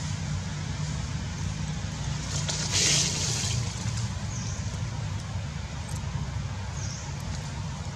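Steady outdoor background noise with a low rumble and a constant hiss, a louder hiss swelling for about a second around three seconds in, and two faint, short high chirps later on.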